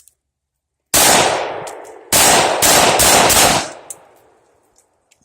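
Gunshots: a single shot about a second in, then a quick string of about five shots, each trailing off in a long echo.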